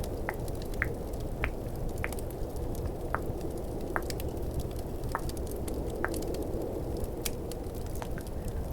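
Mouth sounds of tongue clicking, short sharp clicks about once a second, over a steady background of snowstorm wind and crackling fireplace ambience.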